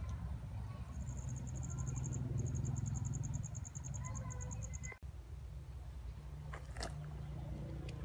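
Outdoor background sound: a rapid, high-pitched insect trill of about ten pulses a second over a steady low rumble, breaking off about five seconds in, followed by a few faint clicks.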